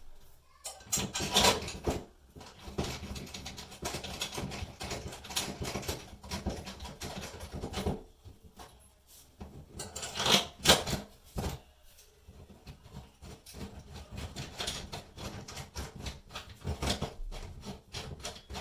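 Handling noise of shelf-mounting hardware being worked by hand: irregular small clicks, taps and rustles, with a louder knock about a second and a half in and another about ten seconds in.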